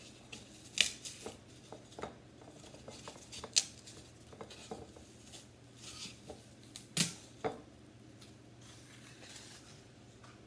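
Floral foam being broken off by hand in small pieces: a run of soft crackles and crunches with a few sharper snaps, the loudest about a second in, at about three and a half seconds, and around seven seconds in.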